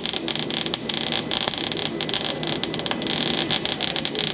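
MIG welder arc crackling steadily as holes in sheet-steel bed panels are welded shut, a dense, rapid sizzle of fine crackles.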